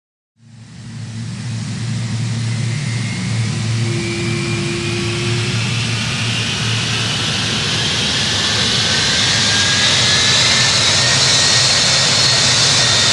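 Twin-engine jet airliner (Aer Lingus Airbus A330) at takeoff power, its engine noise fading in quickly and then holding loud, with a whine rising in pitch and a low steady hum underneath.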